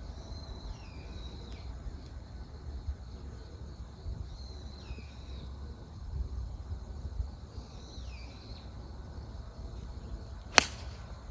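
Wind rumbling on the microphone while a bird calls three times in short falling phrases, then near the end a golf club strikes the ball with a single sharp crack.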